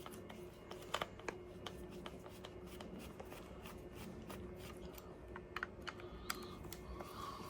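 Faint, scattered clicks and light taps from small plastic motorcycle indicator parts being handled, with a small cluster of clicks near the end.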